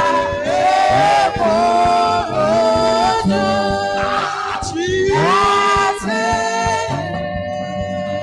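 Gospel worship singing: voices holding long sung phrases over a steady instrumental accompaniment, with a short lull between phrases near the end.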